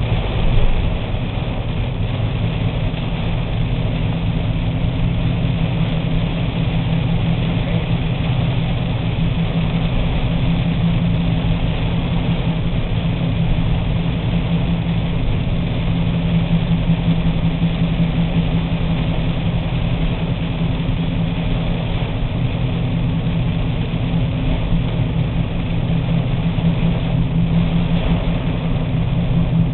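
Heavy rain hitting a car's roof and windshield, heard from inside the cabin, over the car's steady low engine and road hum.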